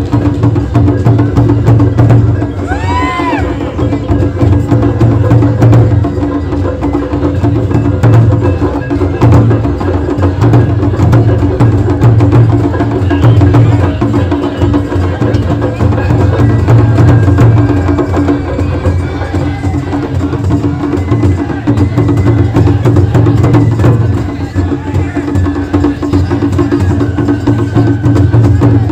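Japanese festival float music (matsuri hayashi): drums and sharp wooden-sounding percussion beating a steady, busy rhythm over a held steady tone.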